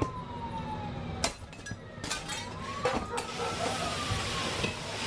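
An emergency vehicle's siren wailing, its pitch falling away, then one slow rise and fall. A few sharp clicks sound in the middle, and a hiss builds over the last two seconds.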